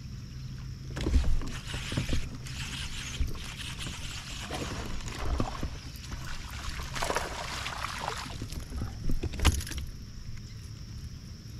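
Water splashing as a hooked bass fights at the surface while it is reeled to the kayak. There is a loud splash about a second in, repeated splashes, and another burst of splashing near the end as the fish comes alongside.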